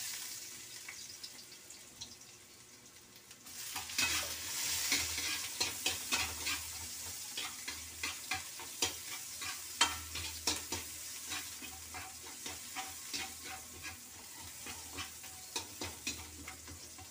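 Chopped garlic and onion sautéing in hot oil in a metal wok, sizzling, with a metal spoon scraping and clicking against the pan as they are stirred. The sizzle is faint at first and gets louder about three and a half seconds in, with the scrapes coming several times a second from then on.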